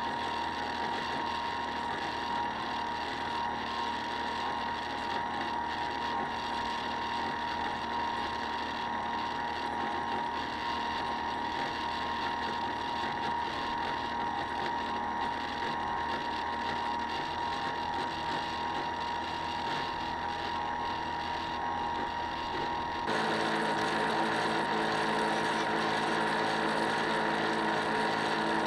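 Small electric motor of a radio-controlled model boat running with a steady whine. About 23 seconds in it grows louder and a lower hum joins.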